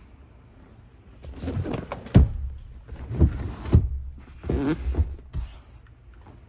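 Camera handling noise in a pickup's rear cab: a series of irregular thumps and rubbing against the leather rear seat, with a brief creak, over about four seconds.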